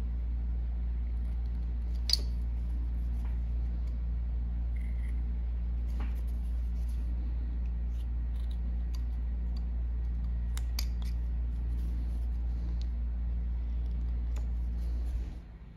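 A whittling knife making small slicing cuts in a wooden carving: scattered soft snicks and sharp ticks, the sharpest about two seconds in and a few together past the middle. Under them a steady low hum runs and stops abruptly shortly before the end.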